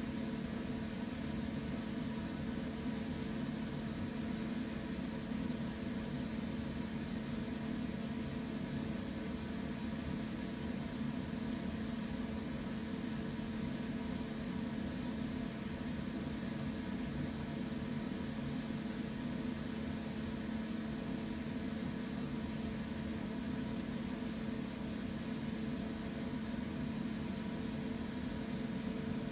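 Steady electric fan hum with a constant low drone and an even hiss, unchanging throughout.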